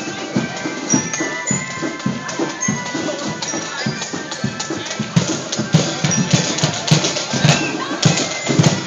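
Marching band playing: a steady drum beat with a high melody line held over it, and sharper strikes that reach up high from about five seconds in.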